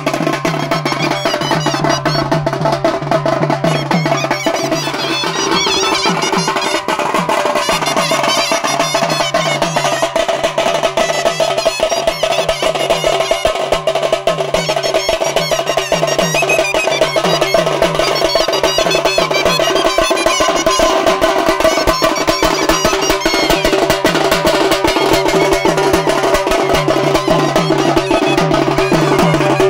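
Traditional band music: a shehnai-type reed pipe plays a wavering melody over a steady drone, with drums beating a continuous rhythm.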